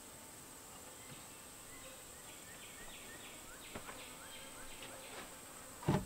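Woodland background: a steady high insect drone, with a bird calling in short repeated notes and little rising whistles through the middle. Near the end comes one sharp, loud knock.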